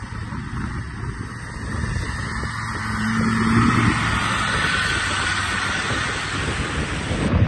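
Land Rover Discovery engine running as the 4x4 drives out of a river ford, water rushing and splashing off its wheels, getting louder as it comes close and passes by.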